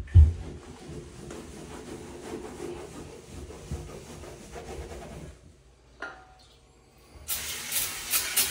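Microfiber towel rubbing and wiping across a shower-pan floor wet with aerosol brake cleaner, with a thump as the wiping begins. A little over seven seconds in, a loud spray hiss starts.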